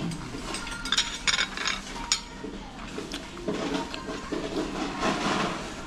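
Metal spoon and cutlery clinking against plates and dishes: a few sharp clinks in the first two seconds, then softer clatter.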